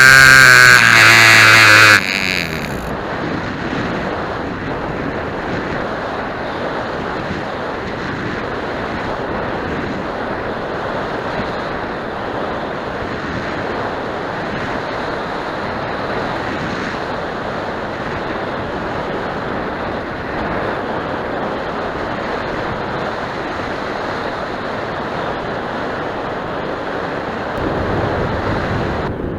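A small model-airplane glow engine, the Royal Spitfire .065, buzzing loud and close, cuts off abruptly about two seconds in. A steady rush of wind noise on the microphone follows, with no engine note standing out.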